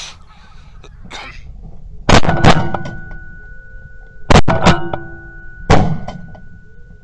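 A series of heavy bangs, two close pairs and then a single one, each leaving a steady ringing tone that hangs on after it.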